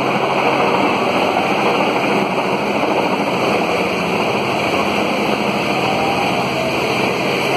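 Helicopter flying low overhead, a loud, steady rotor and engine noise.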